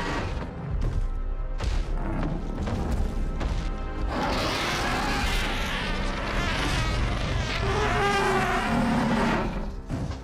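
Designed dragon vocalisations, screeching and growling calls built by layering lion, elephant, cat and tortoise recordings, over a dramatic score. Heavy impacts come in the first few seconds, and the calls take over from about four seconds in.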